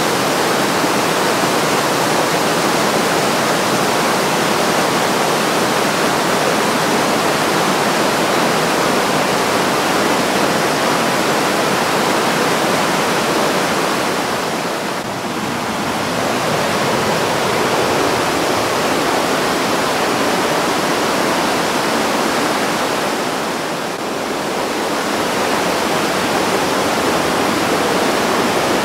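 The Breitach, a fast Alpine river, rushing and churning in white-water rapids over boulders: a steady, loud roar of water that softens briefly twice, about halfway through and again near the end.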